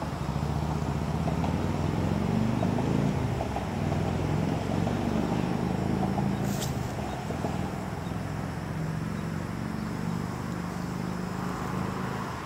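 An engine running steadily, its low drone wavering slowly in pitch, with one brief high chirp about halfway through.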